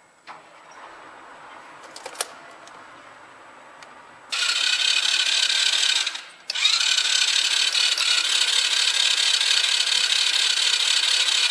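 A kids' ATV's electric starter cranking the engine with the spark plug out and grounded against the engine for a spark test: a steady high whir. It starts about four seconds in, runs for under two seconds, stops briefly, then runs again for about five seconds.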